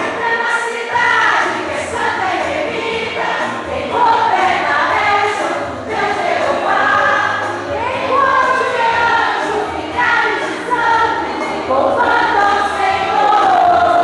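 Gospel song with a choir singing sustained, gliding phrases over instrumental accompaniment.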